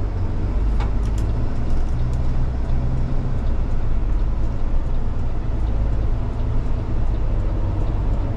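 Tow truck's engine running under load as the truck pulls out and merges into traffic, a steady low drone heard from inside the cab, with a few faint clicks about a second in.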